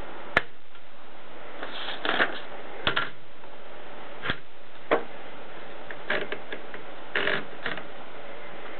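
Olivetti 45 typewriter mechanism clicking and clattering in irregular strokes, single sharp clicks mixed with short clusters, over a steady hiss.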